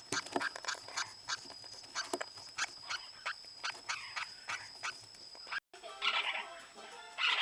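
Lineolated parakeet giving its breeding-season calls: a quick run of short, sharp chirps several times a second, turning into denser chattering after a brief break near the end. A thin steady high whine sits behind the first part.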